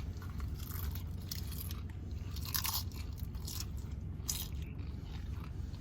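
Someone biting into and chewing a thick tortilla chip with loud crunches, in irregular bursts over a low steady hum.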